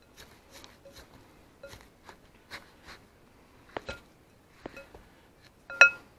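Spatula stirring sticky shredded coconut in a glass bowl: a run of soft scraping strokes, with a few knocks against the bowl and a louder knock near the end that rings briefly on the glass.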